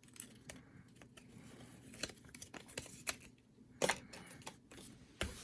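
Small clicks, taps and rustles of packaging being handled, with a sharper click about four seconds in and another near the end.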